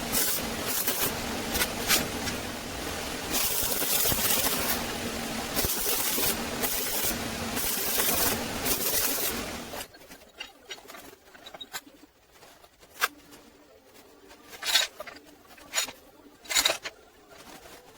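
Workshop metalworking noise: a loud steady hiss peppered with sharp clicks that cuts off suddenly about ten seconds in, leaving scattered sharp metallic knocks and taps.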